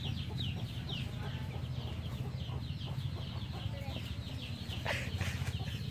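Birds chirping: a steady run of short, high, falling chirps, about three or four a second, over a steady low hum.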